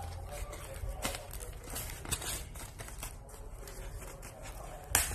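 Cardboard and kraft-paper packaging rustling and crinkling as a parcel is pulled open by hand, with a sharper, louder crackle near the end.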